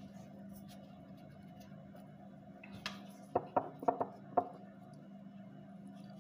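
Five light clinks of kitchenware in quick succession, starting a little over three seconds in, over a steady low hum.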